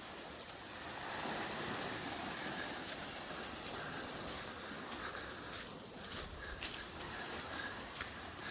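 Steady, high-pitched insect chorus that holds on without a break.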